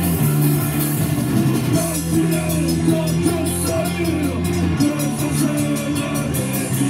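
Live rock band playing: electric guitars, bass guitar and drum kit with steady cymbal strikes, and a singer's voice over the top.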